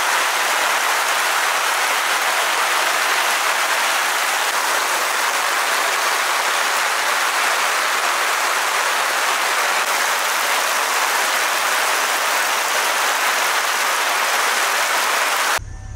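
Heavy rain falling steadily, a dense even hiss that cuts off suddenly near the end.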